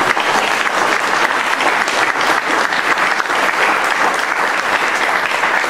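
Audience applauding, a dense and steady clapping of many hands.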